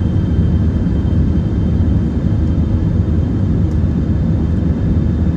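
Airbus A320-200 jet airliner: a steady, even low rumble that holds the same level throughout.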